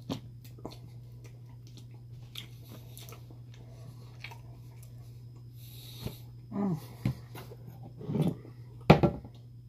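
Close-up eating sounds from chicken wings: wet lip smacks and finger-licking clicks, chewing and short breaths through the nose. A couple of louder mouth noises come near the end, all over a steady low hum.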